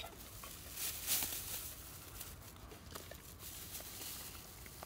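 Faint rustling and crinkling of a thin plastic bag being handled, with scattered small crackles.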